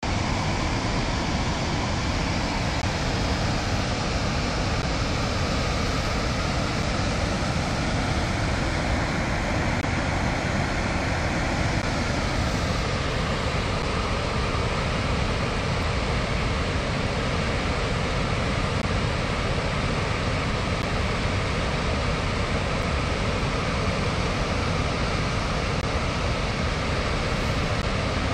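Steady rush of a huge volume of water pouring through the open gates of Wolf Creek Dam's concrete spillway, releasing about 58,730 cubic feet per second.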